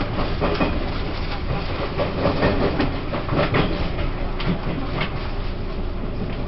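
Taiwan Railways E1000 push-pull Tze-Chiang express running on the track: a steady rumble of wheels on rail, broken by irregular clicks and knocks.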